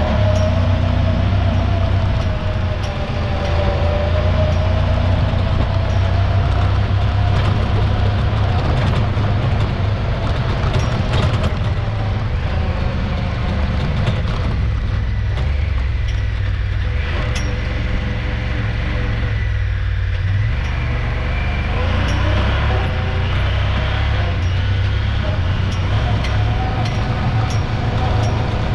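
Honda Pioneer 1000-5 side-by-side driving over sand dunes, its parallel-twin engine running steadily under load with a deep drone and a wavering whine above it, heard from inside the open cab.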